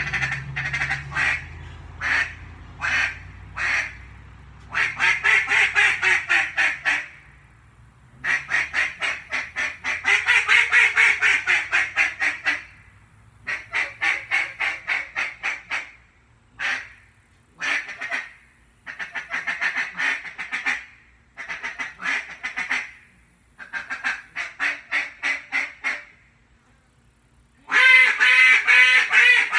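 Acrylic duck call blown in duck quacks. It opens with single, spaced quacks, then gives runs of rapid quacks lasting a few seconds each, with short pauses between. The loudest run comes near the end.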